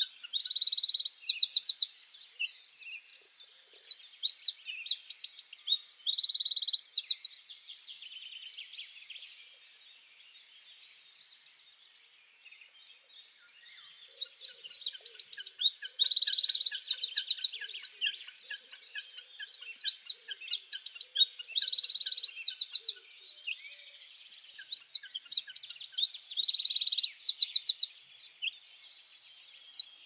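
Eurasian wren singing: loud, fast runs of rapid trills and high notes. The song drops away to a faint lull about a third of the way in and comes back loud about halfway through.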